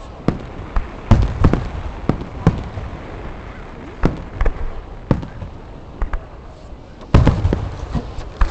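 Aerial fireworks exploding in a rapid string of sharp bangs, some in quick clusters, with booming echoes rolling after them.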